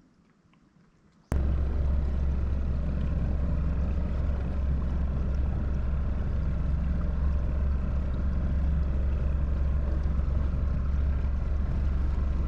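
A boat's motor running steadily under way at trolling pace, a loud even rumble that starts abruptly about a second in after near silence.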